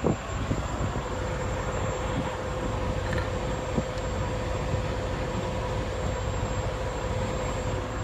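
Steady low drone of idling diesel truck engines, with a faint steady whine over it.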